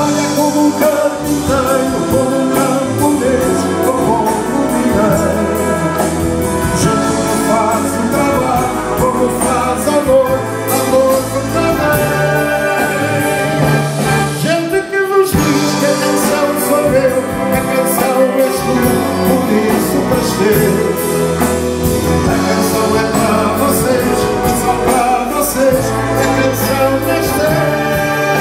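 Wind band with brass playing a song with a male singer. It breaks off briefly about halfway through and then goes on.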